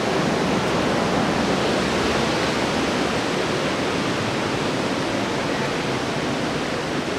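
Steady rush of fast white water on the Merced River below Vernal Fall, an even, unbroken sound with no pauses.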